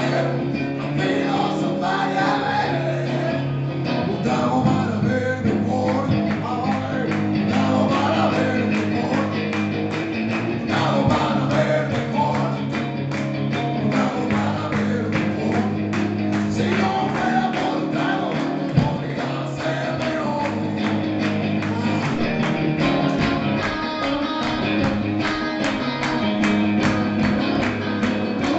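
Live rock music: an electric guitar played through an amplifier over steady bass notes and a regular beat.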